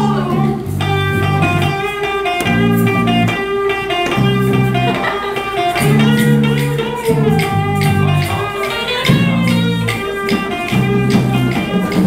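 A band playing blues music: guitar over a bass line that repeats a short figure.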